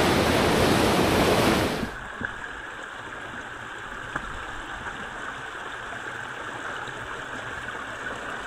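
Whitewater river rapids rushing, cutting off suddenly after about two seconds to the softer, steady flow of a small rocky creek, with a few faint knocks.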